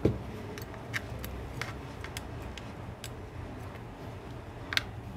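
Light, irregular clicks and taps of a metal spatula against a smartphone's frame and battery as it pries at a battery glued down with double-sided adhesive.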